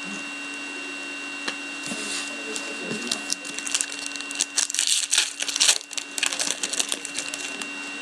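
Foil trading-card pack being torn open and its wrapper crinkled, a dense crackling rustle starting about midway and lasting a few seconds, busiest near the sixth second.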